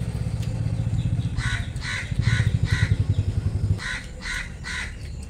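A crow cawing, four caws in a row and then three more after a short pause, over a low engine rumble that stops about four seconds in.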